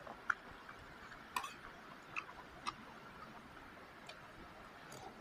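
Faint, scattered small clicks and smacks of a person chewing and eating a mouthful of rice.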